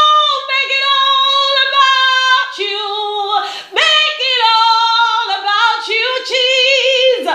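A woman singing unaccompanied, holding long sustained notes in two phrases with a short break for breath about three and a half seconds in.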